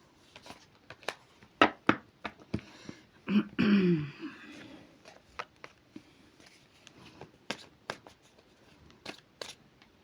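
Tarot cards being shuffled and handled: scattered sharp card snaps and clicks, with a longer sliding rustle about three and a half seconds in.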